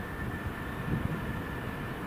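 Diesel freight locomotive running: a steady low engine rumble with a thin, constant high-pitched tone above it.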